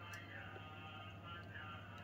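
Faint background music with a wavering, gliding melody, over a low steady hum.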